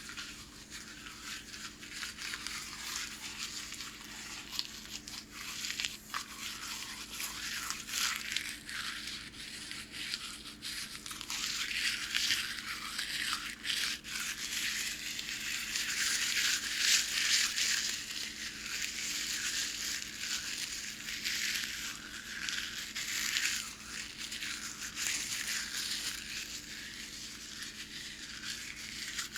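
Hands crinkling and crackling a strip of packing paper: a dense, unbroken run of small crackles and sharp clicks that is busiest and loudest around the middle.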